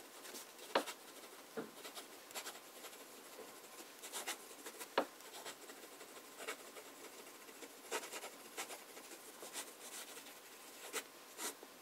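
Online Tango fountain pen with a medium nib writing fast cursive on notebook paper: faint, quick scratching strokes with a few sharper ticks along the way.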